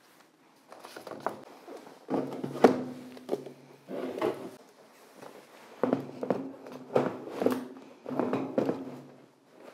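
Plastic seedling trays of potted onion starts clunking and rattling as they are lifted and set into a wheelbarrow, in several irregular bursts of knocks.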